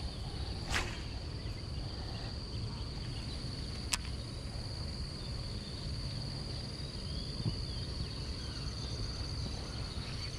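A steady high-pitched insect drone, typical of crickets or cicadas, over a low rumble. A few sharp clicks break in near the start and about four seconds in.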